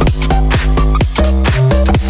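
Electronic dance music with a heavy bass line and synth notes that slide down in pitch as they start, over a steady beat.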